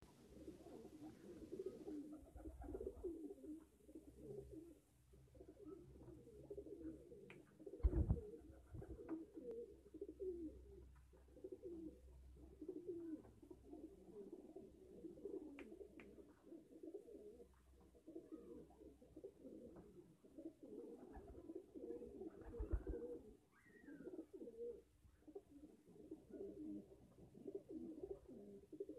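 Domestic pigeons cooing in a loft, several birds overlapping in a steady low warble. A dull thump about eight seconds in and a softer one past twenty seconds.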